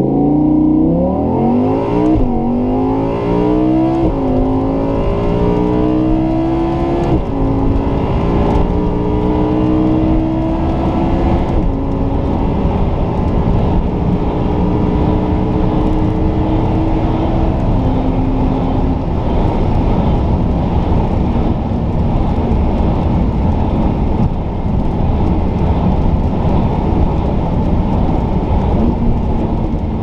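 Audi R8 Spyder's 5.2-litre V10 with sport exhaust at full throttle, heard from inside the cabin: the engine note climbs and drops back through about five upshifts of the dual-clutch gearbox, each gear lasting longer than the one before. Wind and road noise build as speed rises, and near the end the note jumps with a downshift as the car slows.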